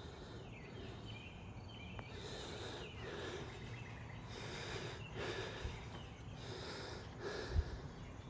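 A man's heavy breathing, out of breath after a hike up to the tower: a run of deep breaths about once a second, with a soft thump near the end.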